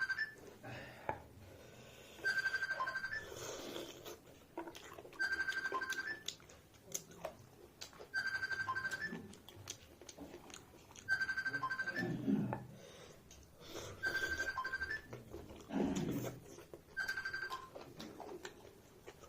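A phone ringing: a short electronic tone with a quick upward flick at its end, repeating about every three seconds, six times.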